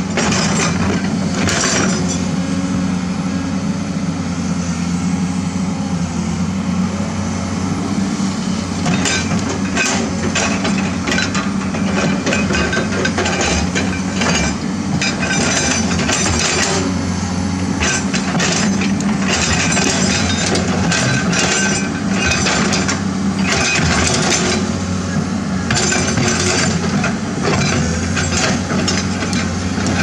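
Komatsu PC200 hydraulic excavator's diesel engine running steadily under load while it digs, with frequent short clinks and scrapes of the steel bucket against stones and gravel.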